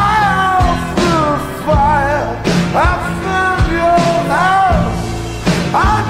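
Background song: a singer's voice carries a melody over steady instrumental backing.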